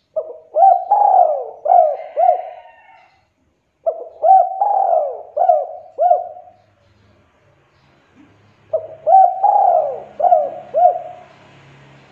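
Spotted dove cooing: three phrases of several throaty coos each, beginning at the start, about four seconds in and about nine seconds in.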